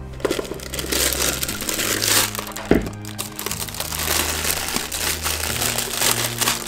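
Thin plastic food bag crinkling and rustling while mashed potato dough is scraped into it with a spatula, with one sharp knock a little under three seconds in. Background music with steady low notes plays underneath.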